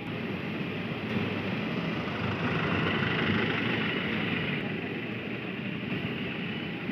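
Steady roar of airport apron noise from parked jet airliners and ground vehicles, swelling a little in the middle.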